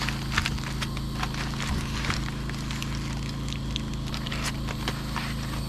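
Metal tongs clicking and aluminium foil crinkling as a foil-wrapped baked potato is handled, with a knife scraping against it and tapping on a wooden cutting board; a steady low hum runs underneath.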